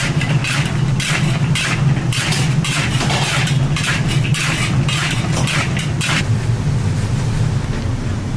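Metal spatula scraping and stirring in a large wok, tossing fried chicken pieces in sticky sauce (dakgangjeong). The strokes come about two to three a second and stop about six seconds in, over a steady low hum.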